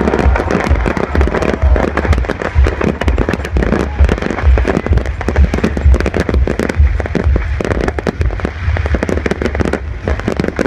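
Fireworks crackling and popping in a dense, rapid barrage over a steady low rumble.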